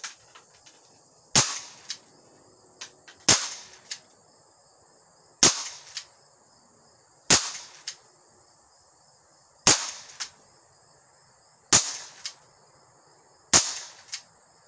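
Dan Wesson 715 replica CO2 pellet revolver firing seven sharp cracks, about two seconds apart. Each shot is followed about half a second later by a fainter knock.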